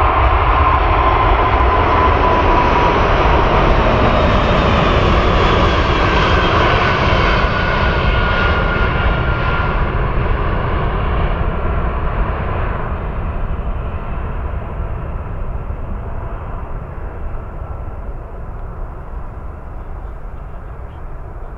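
Airbus A380's four turbofan engines at take-off thrust as the airliner lifts off and climbs out: loud jet noise with a whining tone that glides slowly downward, fading steadily over the second half as the aircraft moves away.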